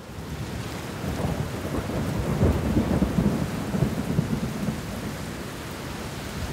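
Recorded rain with low rolling thunder, rising out of silence at the start and swelling to its loudest in the middle.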